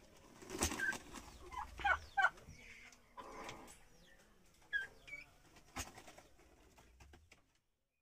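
Turkeys and chickens giving short, scattered high-pitched calls, with a couple of sharp knocks between them; the sound cuts off abruptly shortly before the end.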